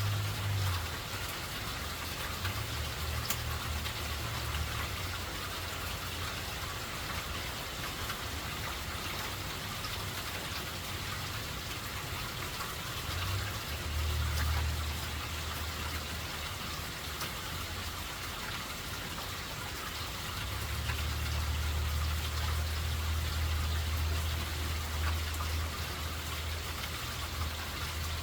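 Steady rain falling, an even hiss of drops, with a low rumble that swells in and out several times underneath it.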